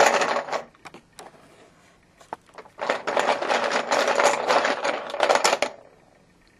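Plastic poker chips clattering against each other in a small black cauldron as a hand rummages through them to draw one. A short burst of clatter comes at the start, then a few single clicks, then about three seconds of dense rattling that stops shortly before the end.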